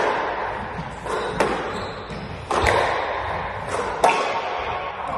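Squash ball struck by rackets and hitting the court walls during a rally: about six sharp cracks at uneven gaps, each ringing briefly in the enclosed court.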